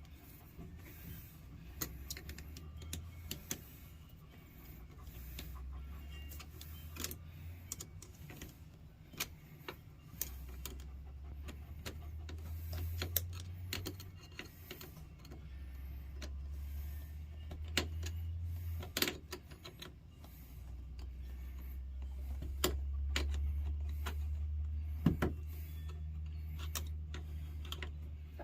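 Scattered clicks and knocks of hand work on RV plumbing pipes and fittings, over a low rumble that swells and fades every few seconds.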